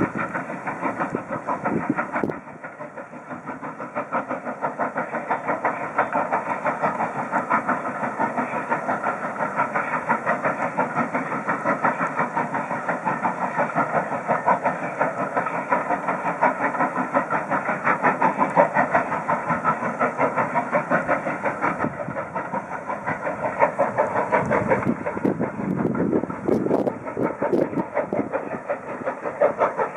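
Southern Railway S15 class 4-6-0 steam locomotive No. 825 working a train, its exhaust beats coming in a steady, even rhythm.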